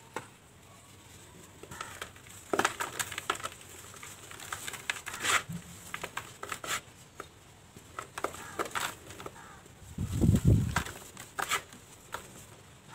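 Dry cement balls crushed and crumbled by hand in a bucket of powdery dirt, giving irregular gritty crunches and crackles as the powder sifts through the fingers. A dull low thump about ten seconds in is the loudest sound.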